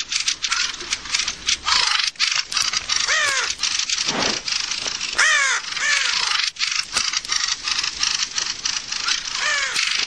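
Fieldfares give harsh, rapid chattering alarm calls as a colony mobs a predator, with a raven among them letting out a few loud, arching calls.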